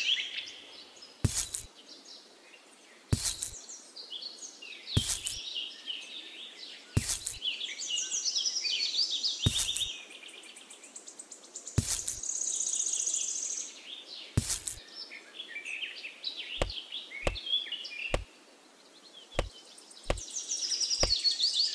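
Birds chirping and twittering, with a sharp tap every two seconds or so as small miniature pieces are set down on sand, then a quicker run of lighter clicks near the end.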